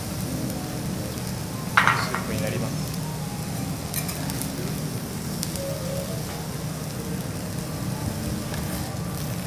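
Garlic fried rice sizzling on a hot teppanyaki steel griddle while metal spatulas scrape and tap the plate. A sharp metallic clank about two seconds in is the loudest sound.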